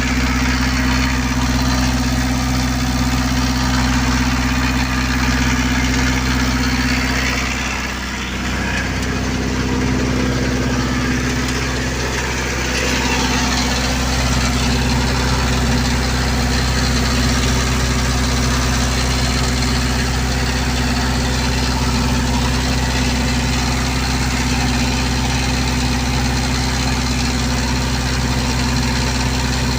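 Generator set engine running steadily, with a brief drop in level about eight seconds in that recovers a few seconds later.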